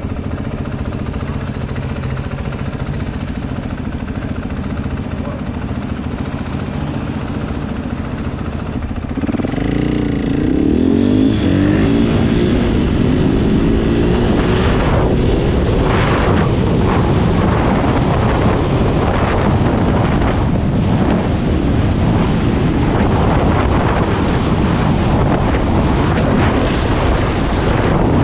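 KTM 500 EXC's single-cylinder four-stroke engine idling steadily, then revving up about nine seconds in as the bike pulls away and accelerates, and running on under way with wind rushing over the microphone.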